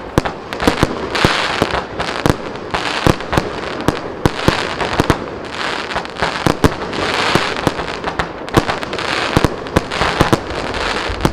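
Tropix 76-shot consumer aerial finale set, four cakes firing in rapid succession. There are sharp shots several times a second, and between them come recurring patches of loud, noisy hiss.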